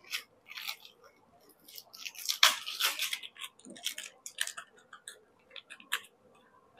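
Short, irregular scratchy strokes of writing on a board, densest about two to three seconds in.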